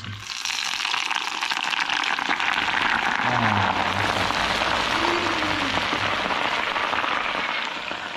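Hot cooking oil sizzling and bubbling as it is poured into a well in a mound of crumbled bread. The sizzle starts just as the pour begins and fades near the end.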